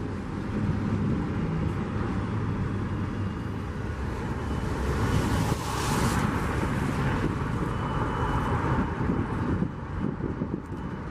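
Steady low rumble of diesel freight locomotives running, with a hiss that swells about five seconds in and eases off after about nine seconds.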